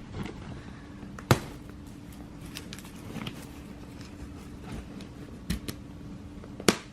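Plastic clips on a Nuna stroller's bassinet being unclipped and handled: a few sharp clicks and knocks, the loudest about a second in and near the end, over a faint steady low hum.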